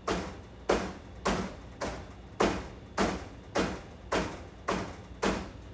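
A batter-filled multi-cavity cake pan being rapped down on the counter ten times in a steady rhythm, a little under twice a second, to knock air bubbles out of the batter.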